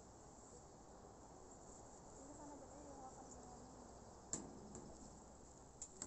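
Faint, steady chirring of insects in the hillside vegetation, with faint distant voices and a single sharp click about four seconds in.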